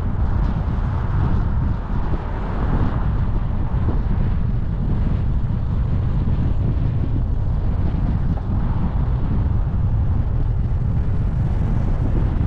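A car driving along at speed: a steady low rumble of road and engine noise mixed with wind buffeting the microphone.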